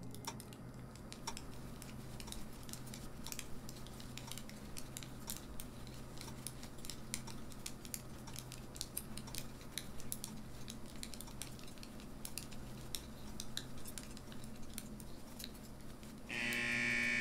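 Many knitting needles clicking irregularly as a roomful of people knit, over a low steady hum. About a second before the end a loud electric buzzer starts sounding steadily.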